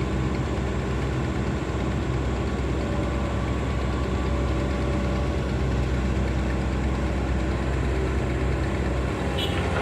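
Diesel engine of a Komatsu PC200 hydraulic excavator running steadily at an even pitch while it works coal.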